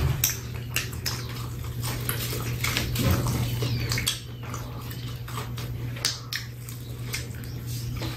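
Crispy fried chicken being torn by hand and chewed, with irregular small crunches and clicks over a low steady hum.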